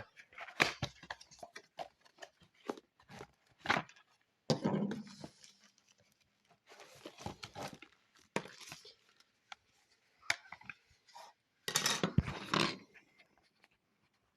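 Handling noise as the video doorbell camera is fetched: scattered clicks, knocks and short rustles of objects being picked up and moved about, with a louder spell of rustling and knocks about twelve seconds in.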